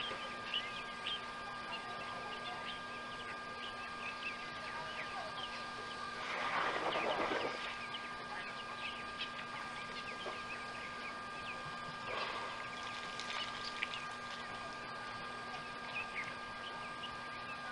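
Waterhole ambience: many short, high bird chirps throughout over a steady electronic hum with thin high tones. About six seconds in, a louder noisy rush lasts about a second and a half.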